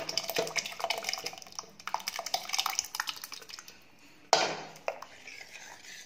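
Steel cookware clattering as cooked dal is poured and scraped from a steel vessel into a steel pot of simmering sambar. Rapid metal clinks and scrapes run for the first few seconds, then a louder clank comes about four seconds in, followed by a ladle stirring in the pot.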